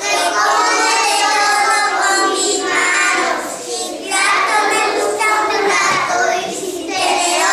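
Young children's voices singing and chanting together, in short phrases with brief pauses between them.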